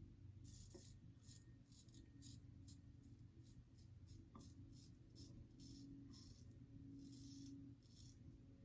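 GEM Pushbutton single-edge razor scraping through two days' stubble under lather: faint, short strokes, about two or three a second.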